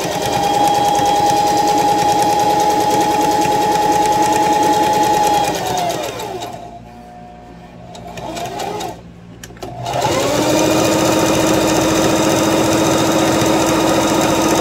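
Singer 44S Heavy Duty sewing machine stitching through several folded layers of denim. Its motor whine and rapid needle ticking hold steady for about five seconds, wind down and stop. After a pause of a few seconds it starts up again at a lower pitch.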